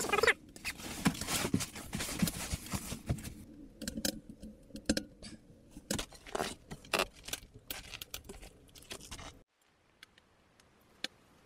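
Crunching and scraping in snow with scattered sharp knocks, busy for the first few seconds and sparser after, cutting to near silence about nine and a half seconds in.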